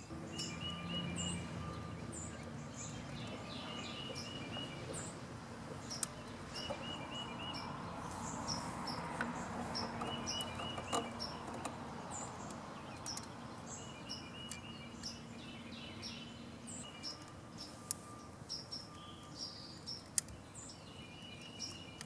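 Birds chirping in short repeated runs of quick notes over faint outdoor background noise, with a few light clicks of the carburetor being handled.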